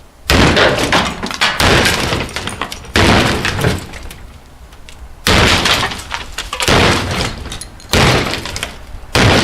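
An axe hacking into a dishwasher: about seven heavy blows, each followed by about a second of clattering and rattling as the machine breaks apart.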